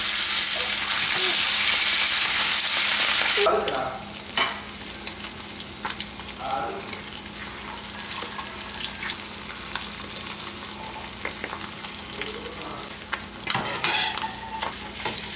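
Masala-coated fish sizzling in hot oil in a stainless steel frying pan. The sizzling is loud at first and drops off sharply about three and a half seconds in. A quieter steady sizzle follows, with scrapes and taps of a slotted metal spatula turning the fish.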